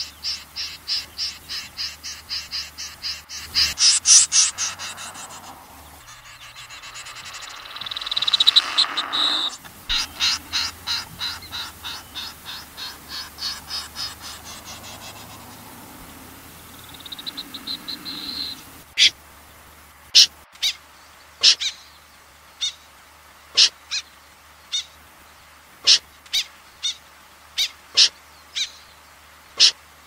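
Recorded snipe calls used to call a flock: fast runs of repeated high notes, about four a second, in the first half, then single sharp call notes about once a second from about two-thirds of the way in.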